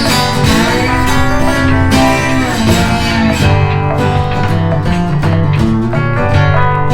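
Background music led by guitar, with plucked notes over a steady beat.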